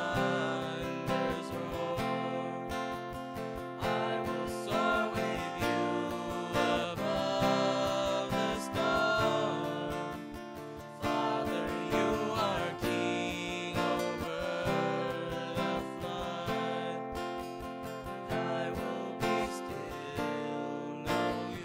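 Acoustic guitar strummed as accompaniment while men sing a worship song.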